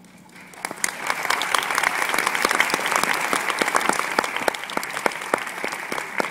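Audience applause, starting about half a second in and swelling into a dense, steady clapping.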